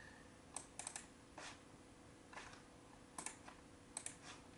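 Faint, scattered clicking of a computer mouse and keys, in about six small groups of one to three clicks, over a low steady room hum.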